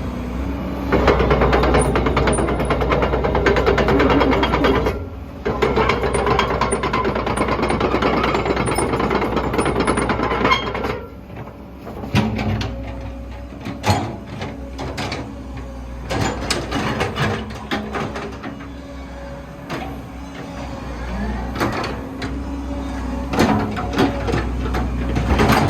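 Komatsu PC130-6E excavator's S4D102E-1 diesel engine running with the hydraulics working the arm and bucket, louder and busier for the first ten seconds or so, then easing off. Scattered sharp knocks come through in the second half.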